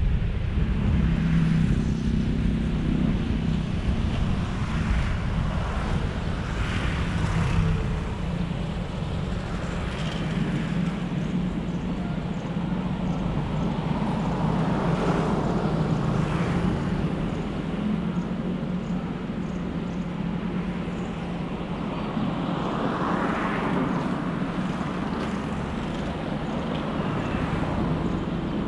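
Steady low rumble of a car being driven, engine and tyre noise on the road, with a few swells of hiss from passing vehicles.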